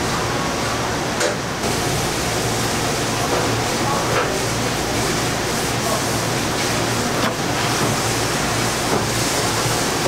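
Steady rushing kitchen background noise with a low hum, and a few faint soft taps as gloved hands lay pepperoni slices on the cheese of a pizza.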